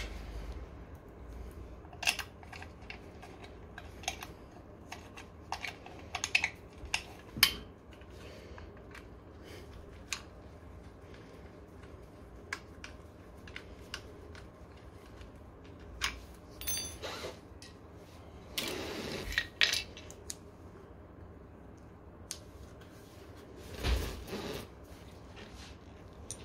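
Hand tools and small metal parts clinking and knocking during scooter repair work: scattered separate clicks and taps, with one brief ringing clink about two-thirds of the way in and a few short scraping rustles.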